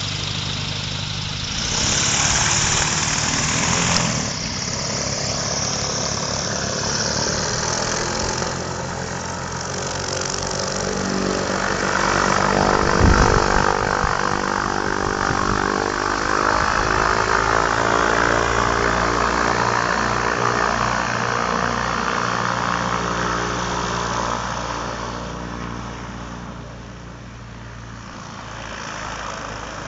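Homemade airboat's diesel engine and pusher propeller running as the boat travels across the water, getting louder about twelve seconds in and fading near the end as it moves off.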